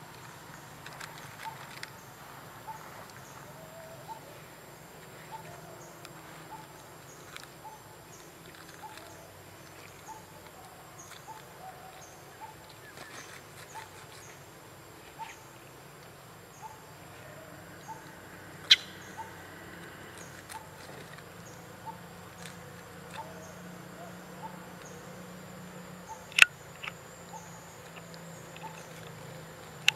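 Forest ambience: a faint steady insect hum and a short note repeated about every two-thirds of a second, broken by two sharp clicks, one a little past the middle and one near the end.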